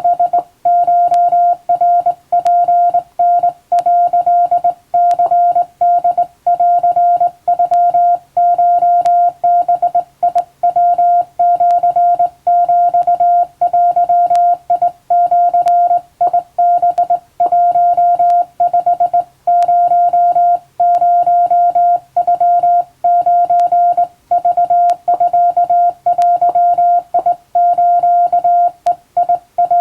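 Hand-keyed Japanese (wabun) Morse code: a single steady-pitched beep keyed on and off in dots and dashes, with short gaps between characters.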